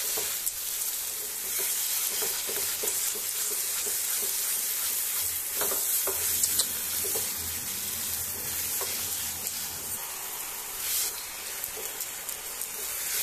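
Grated apple and sugar sizzling in ghee in a nonstick pan, with a silicone spatula stirring and scraping through the mixture in short, irregular strokes over a steady hiss of frying.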